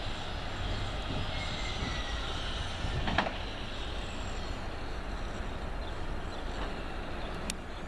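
Train running through a station: a steady rumble of wheels and running gear, with a sharp clack about three seconds in.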